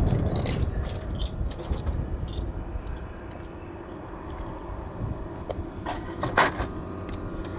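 Coins clinking and rattling as a 100-yen coin is fed into a vending machine, a quick run of metallic clicks early on, then a few knocks about six seconds in, one of them the loudest sound here.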